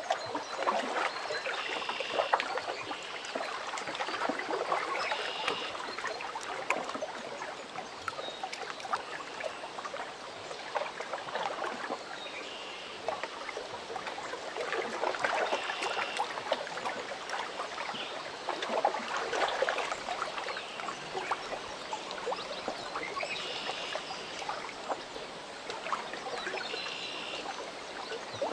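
Lake water lapping against the shore, a splashy wash that swells and ebbs every few seconds. Short high chirps come through now and then.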